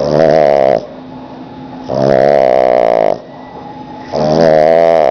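Sleeping pug snoring loudly: a snore ends just under a second in, then two more follow about two seconds apart, each lasting about a second, with quieter breaths in between.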